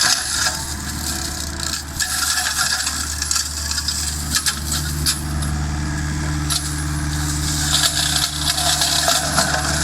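Excavator-mounted hydraulic flail mulching head shredding brush and wood. A steady low drone of machinery is joined by a second, higher hum about four seconds in. Over it comes a dense, irregular crackle of sharp cracks and clatter as the spiral-set hammers chip the material.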